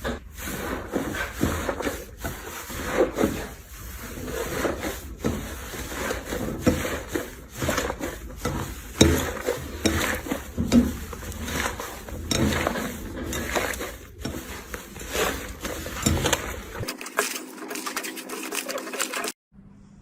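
Slime being squeezed and poked by hand, making a dense run of irregular sticky clicks and pops.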